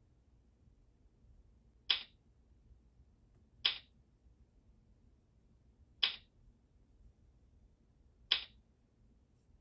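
Four short, sharp electronic clicks, roughly two seconds apart: the Eyegaze Edge's selection feedback sound as on-screen mouse-control keys are activated by eye gaze.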